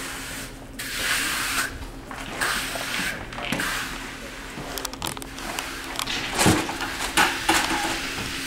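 Hand trowel scraping across wet epoxy-bound river stone in repeated rough strokes. A few sharp knocks come about six to seven seconds in.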